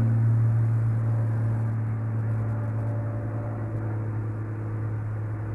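Steady low mechanical hum of a running motor or engine, easing off slightly in level.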